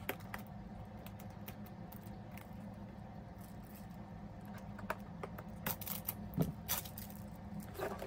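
Cardboard laptop box being handled and cut open with scissors: a scatter of small clicks and taps from fingers, cardboard and scissor blades, busiest about five to seven seconds in, over a low steady hum.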